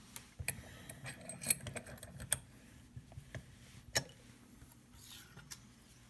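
Kwikset-made Gatehouse deadbolt lock cylinder being handled and set into a small bench vise: scattered sharp metal clicks and clinks, the loudest about a second and a half in.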